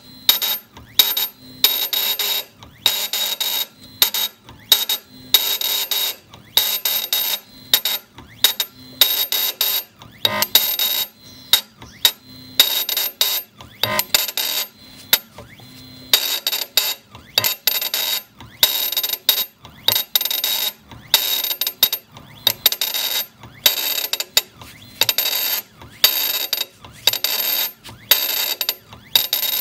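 CNC granite engraving machine at work: bursts of machine noise with a steady high whine in each, starting and stopping about once or twice a second as the tool moves and engraves. The bursts thin out for a few seconds midway.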